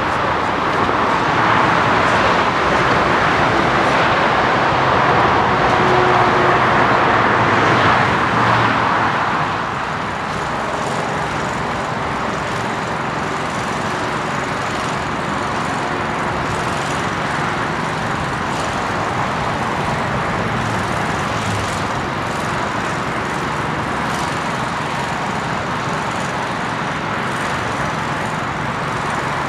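Jet engine noise of a Boeing 787-9 climbing away after takeoff. About ten seconds in it gives way to a steadier, slightly quieter, distant jet rumble from a four-engine Boeing 747-8 on the runway, spooling up for its takeoff run.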